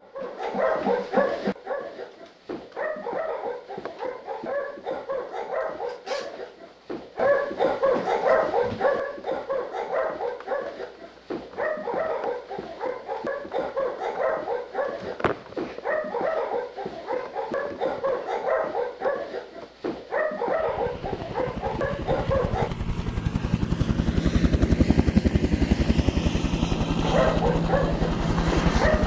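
Dogs barking and yelping in rapid, continuous bursts. About twenty seconds in, the barking gives way to a low, fast, steady beating like helicopter rotor blades.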